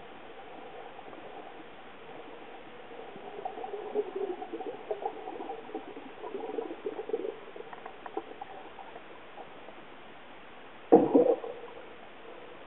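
Sound picked up by an underwater camera: a faint steady hum with irregular crackles and squeaks through the middle. A loud rough burst lasting about half a second comes near the end.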